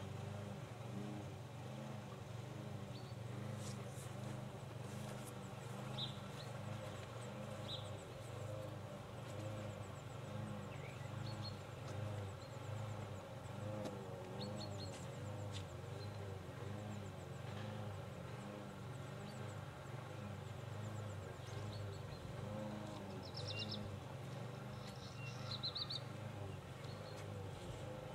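A steady low hum with a regular pulse, with a few faint high chirps of small birds scattered through it.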